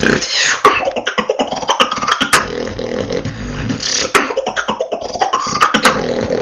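Solo beatboxer performing a battle round: rapid vocal kick, snare and click sounds mixed with short held pitched tones, heard through a voice-chat connection.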